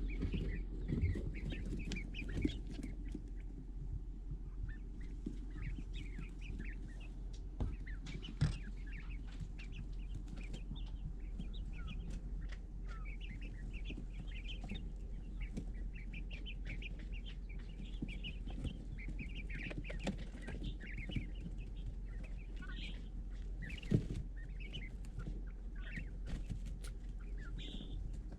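A group of young chicks, a mix of quail and chicken chicks, peeping over one another: many short, high chirps with no rhythm. Underneath runs a steady low hum, and there are a couple of sharp knocks, one about eight seconds in and one near the end.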